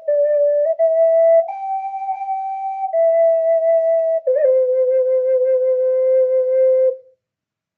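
A breathy, flute-like blown tone held on a few notes in turn, stepping up and down in pitch, then a long lower note that cuts off near the end.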